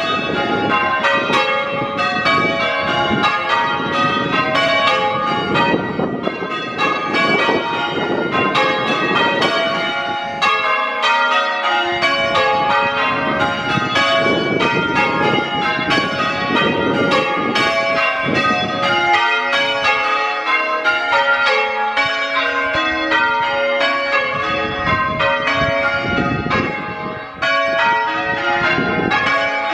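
A ring of church tower bells rung by a band of ringers on ropes at practice, English full-circle style. It is a steady, unbroken run of overlapping strokes at many different pitches.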